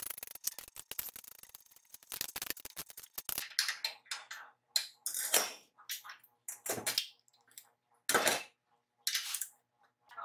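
Hand tools and metal parts being handled: a quick run of small clicks and ticks, then a series of short scrapes and rustles.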